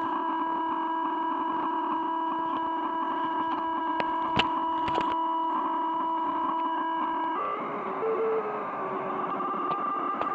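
Electronic noise machine sounding a steady feedback-like drone of several held tones, with a few clicks about four and five seconds in. About seven seconds in it switches abruptly to a hissing texture with a single tone stepping down in pitch.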